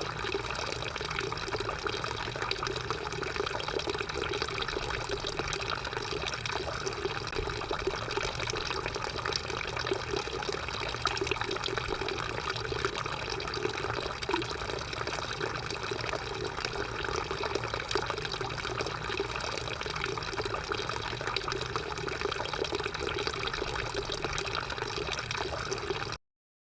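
Drinking fountain running, a steady stream of water splashing into the basin, which cuts off suddenly near the end.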